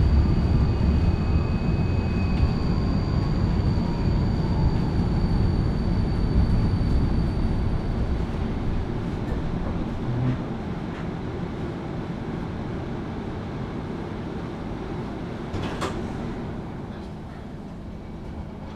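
Tram heard from inside the passenger cabin, slowing to a stop: the rumble of the running gear and a falling whine fade away over the first eight seconds or so. It then stands with a quieter steady hum, and a short click comes about sixteen seconds in.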